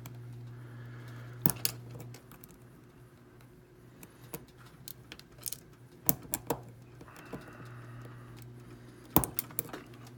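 Small metal clicks and scrapes of a tool prying at the retaining clip on the plug of an Ace A527 padlock, in scattered sharp ticks, with a cluster about 9 s in. A steady low hum runs underneath.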